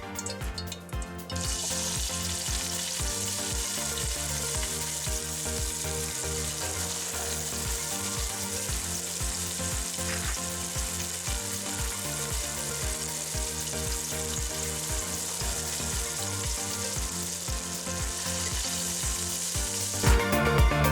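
Food frying in hot oil in a pan: a steady sizzle that starts about a second in, over background music with a steady beat that grows louder near the end.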